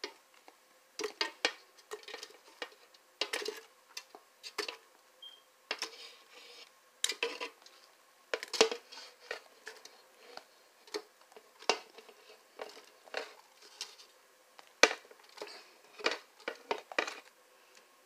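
Diced watermelon chunks dropped by hand into a plastic blender jar, making irregular short knocks and clicks against the plastic as the jar fills.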